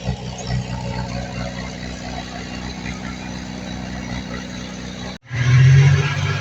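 Diesel engine of heavy earthmoving equipment running steadily. It breaks off abruptly about five seconds in and comes back louder.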